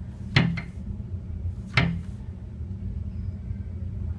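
Two sharp knocks about a second and a half apart, over a steady low hum.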